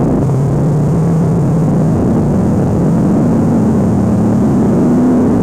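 Heavily distorted, processed audio from a logo-effects edit: a loud, steady, noisy rumble with a low droning pitch that wavers and creeps slightly higher near the end.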